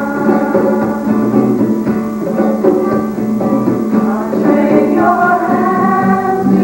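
A song performed live: a voice singing a melody over instrumental accompaniment that holds a steady low note.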